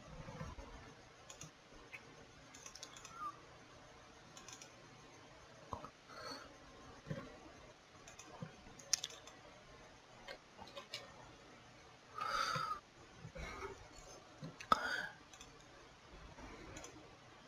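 Faint computer mouse clicks, scattered and irregular, in a small room.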